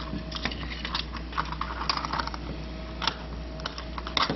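Irregular light clicks and taps of a metal portable door lock being handled and fitted into a door's latch opening.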